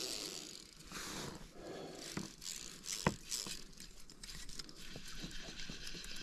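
Fly reel being wound by hand: uneven runs of small clicks from its ratchet, with scraping from line and fingers on the spool, and one sharp click about three seconds in.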